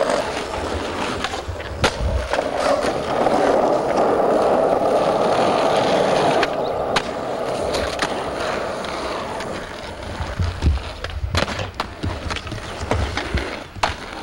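Skateboard wheels rolling on asphalt, a steady gritty rumble, with a few sharp clacks of the board along the way.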